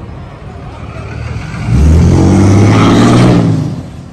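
Diesel pickup truck engine revving hard, loud for about two seconds starting just under two seconds in, then fading away.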